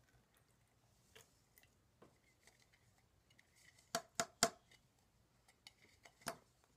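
A plastic cup being tapped and scraped out against a plastic tub: three quick sharp knocks about four seconds in and one more a little past six seconds.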